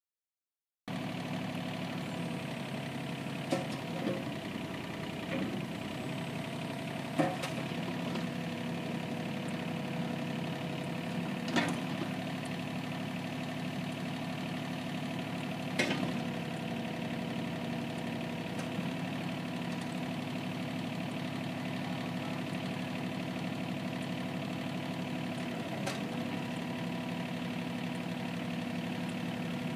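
Nissan N230 mini excavator's three-cylinder engine running at a steady idle, starting about a second in. A handful of sharp knocks sound over it, most of them in the first half.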